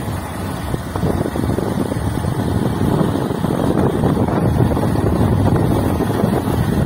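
Wind buffeting the microphone of a moving motorbike, with the bike's running noise underneath.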